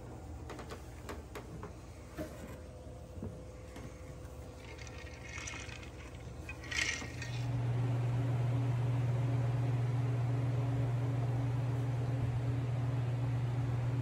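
Wood campfire crackling with scattered pops. About halfway through it gives way to the louder, steady hum and rushing air of a walk-in cooler's refrigeration unit.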